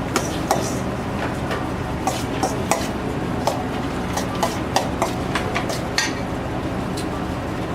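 Kitchen clatter: utensils and dishes clicking and knocking on and off, over a steady low hum of kitchen equipment.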